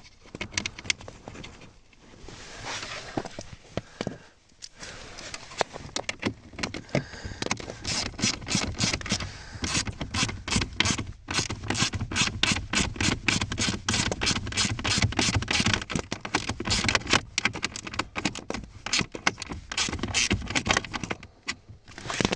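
Rapid, irregular clicking and scraping of plastic dashboard parts and fasteners being handled while a heater blower motor is fitted into its housing. The clicks are sparse at first and come thick and fast from about a third of the way in.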